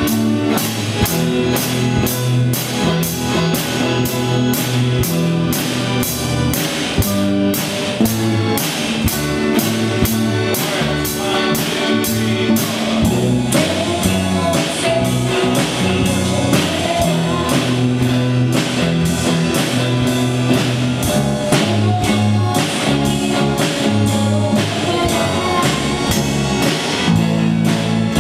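Live rock band playing a song with a steady drum-kit beat, electric guitar and keyboards, with a voice singing over it.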